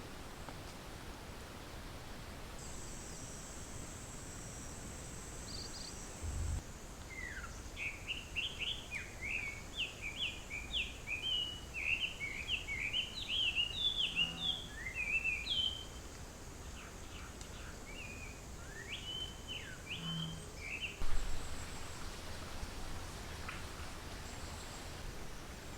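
A songbird singing a quick run of short chirps, with a few more calls a little later, over a steady outdoor hiss. Early on, a thin, steady high-pitched buzz, like an insect, runs for a few seconds.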